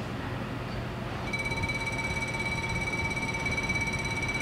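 Level crossing warning bells start ringing about a second in, giving a steady, high, rapidly struck ring. This signals that the crossing has been activated for an approaching train.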